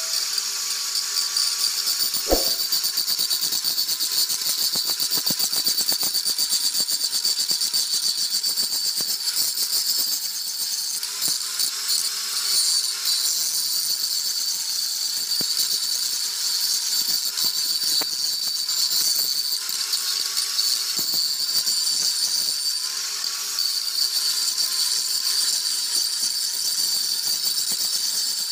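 Electric grinder working on a tractor's cast iron rear axle housing: a steady, high-pitched grinding hiss over a motor whine that wavers slightly as the disc's load changes.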